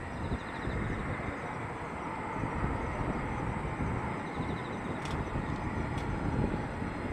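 Distant Eurofighter Typhoon's twin EJ200 turbofan engines at taxi power, a steady low rumble.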